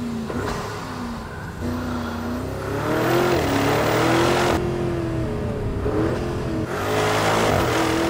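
Porsche Cayenne Turbo GT's 4.0-litre twin-turbo V8 accelerating hard. Its pitch rises and then drops several times, as it does when the car pulls through the gears.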